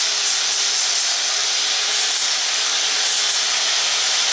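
Wire brush spinning in an electric drill, scouring a wood surface with a steady, even scratching: the wood is being roughened to give it texture.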